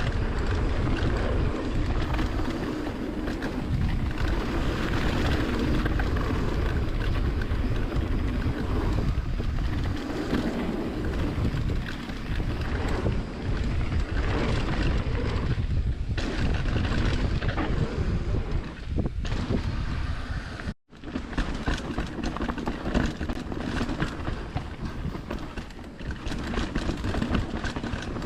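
Wind buffeting the microphone of a mountain-bike rider's camera, over the rolling and rattling of the bike on a rough dirt trail. It is a dense, steady rush heavy in the low end, scattered with short clatters. The sound cuts out for a split second about three-quarters of the way through.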